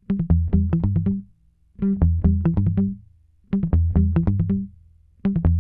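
Background music: a short plucked guitar-and-bass riff of quick notes, played three times with brief pauses between and starting again near the end.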